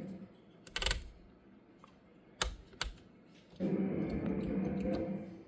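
An OSCar synthesizer note dies away, then a few sharp clicks of panel switches and keys follow. About three and a half seconds in, another sustained synth note sounds and fades out near the end.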